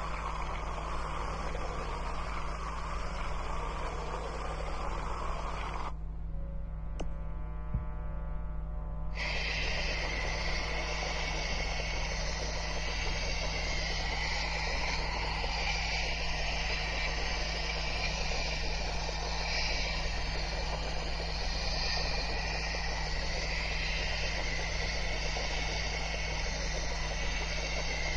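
Steady hiss over a constant low hum, with no distinct sound events. The higher hiss drops away for about three seconds, a few seconds in, then returns.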